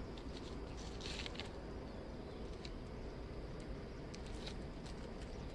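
Outdoor background noise: a steady low rumble with scattered faint clicks and a brief hiss about a second in.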